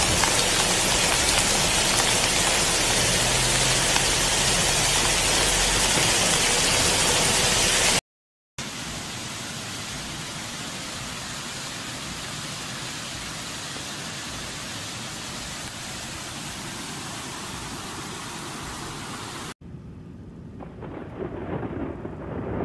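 Steady rush of rain-fed flood water pouring down a rocky hillside. It cuts off suddenly about eight seconds in, giving way to a quieter stretch of whitewater rushing over boulders. Near the end a low rumble of thunder begins to build.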